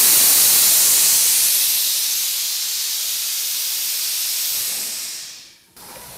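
Air-ride suspension bags being dumped: a loud, steady hiss of air venting as the truck lowers to the ground, easing off gradually and stopping shortly before the end.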